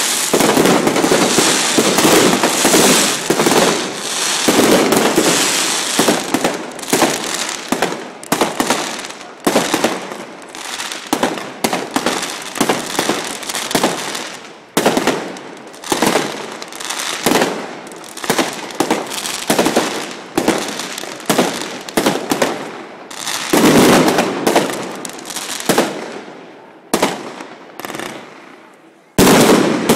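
Fireworks display: a dense run of crackling and bangs from bursting aerial shells, thinning into separate bangs about once or twice a second. A loud cluster of bursts comes about three-quarters of the way through, and a sharp, loud bang just before the end.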